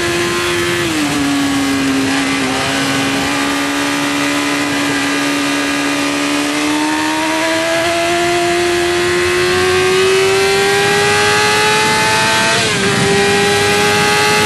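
Yamaha R6 motorcycle's 600 cc inline-four engine running hard on a race track. Its pitch falls about a second in, holds through the corner, then climbs steadily as it accelerates out, with a brief dip near the end as it shifts up a gear.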